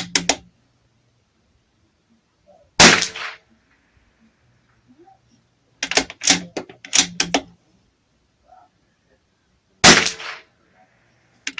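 Two shots from a Bergara B14R .22 LR bolt-action rifle, about seven seconds apart, each a sharp crack with a short ringing tail. Between them the bolt is worked in a quick series of metallic clicks, near the start and again about six to seven seconds in, as each spent case is cleared and a new round chambered.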